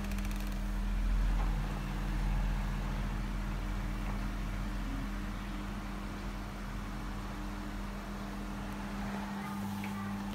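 Pensonic electric stand fan running, its motor giving a steady hum over a low rumble.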